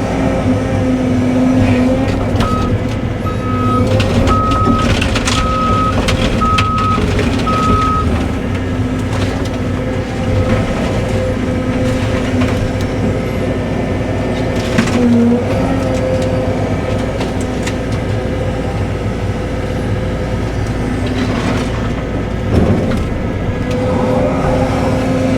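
Cat 313 excavator's diesel engine running steadily, sagging briefly under load a couple of times. A string of short, evenly spaced alarm beeps sounds for a few seconds near the start. Scattered knocks and cracks come through over it.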